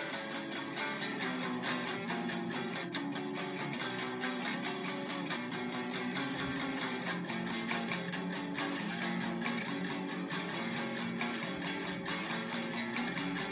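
Electric guitar strings beaten and scraped with a stick in noise-rock fashion: rapid, even strokes over sustained low notes that shift in pitch every second or so.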